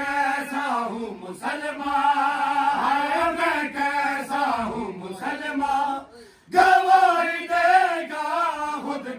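Men chanting a noha, a Shia lament, in a melodic recitation. The chant breaks off briefly about six seconds in, then comes back louder.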